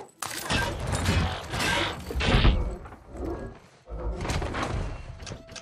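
Film sound effect of the robot Bumblebee changing from a Volkswagen Beetle into robot form: two long runs of heavy mechanical clanking and thudding, with a short break a little past the middle.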